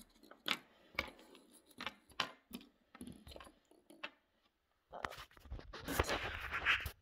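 DTD squid jigs, plastic lures with metal hook crowns, being picked up and set down on a wooden tabletop: a string of light clicks and taps. About five seconds in comes louder rustling and rubbing, the loudest part, as the camera phone is handled and moved.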